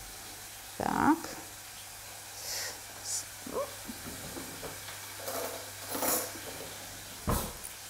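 Quiet kitchen handling sounds: a spoon faintly scraping and dabbing chocolate spread onto puff pastry on baking paper, with soft rustles and a single sharp click near the end.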